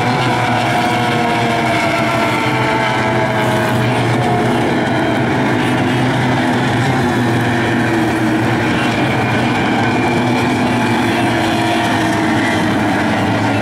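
Several two-stroke racing outboard motors at full throttle on stock outboard runabouts speeding past, their drones overlapping and slowly shifting in pitch.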